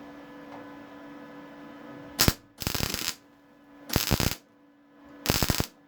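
MIG welder laying three short tack welds on car floor sheet metal, each a brief burst of crackling and spitting, the first starting with a sharp pop about two seconds in.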